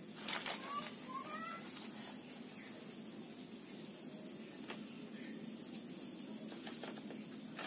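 Insects chirring steadily in a high, finely pulsing drone, with a few short rising bird chirps about a second in.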